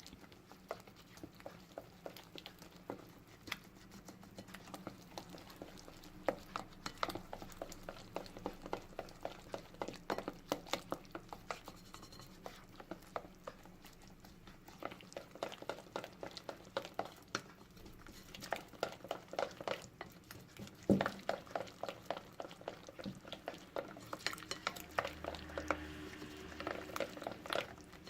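Hand whisk beating crepe batter in a bowl: a fast, steady clicking of the wire whisk against the bowl as flour lumps are worked out of the batter. One louder knock comes about two-thirds of the way through.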